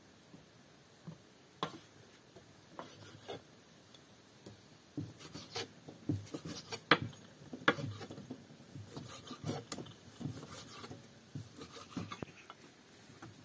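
Hand food preparation: irregular rubbing and rasping strokes with scattered sharp clicks and knocks, busiest in the middle.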